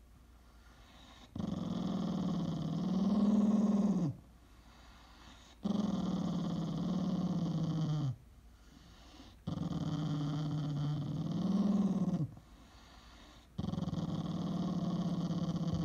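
A puppy growling in long, low, drawn-out growls: four of them, each lasting two to three seconds with short pauses between, the pitch swelling up near the end of some.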